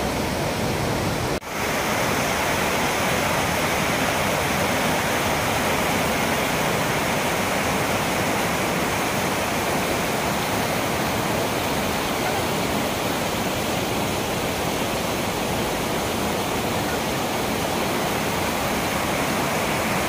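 Steady rushing of fast, muddy whitewater as a river in spate pours over rocks. The sound cuts out for an instant about a second and a half in.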